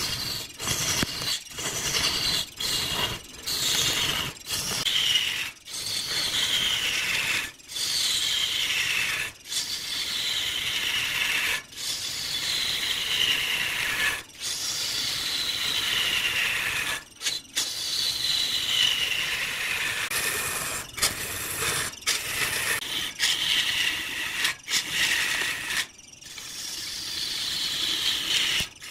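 Turning tool cutting into a block of wood spinning on a lathe, in repeated passes a second or two long. Each pass is a scraping whine that falls in pitch, with short breaks between passes.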